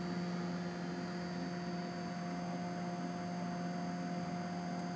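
Twin 120 mm computer radiator fans running: a steady hum over a faint airy hiss.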